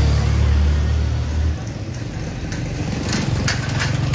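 A motor vehicle's engine running close by with a low, steady hum that drops away about a second and a half in, followed by a few short clicks and rattles.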